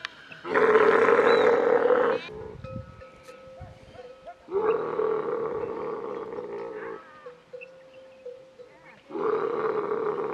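Young female dromedary camel bellowing three times, each call about two seconds long and held at a steady pitch, while a bull camel mounts her.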